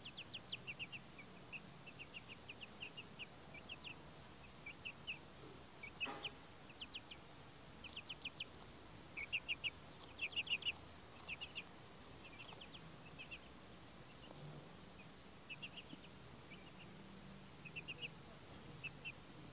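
Young chicks peeping: runs of short, high peeps, several a second, coming in clusters and pauses, loudest about ten seconds in.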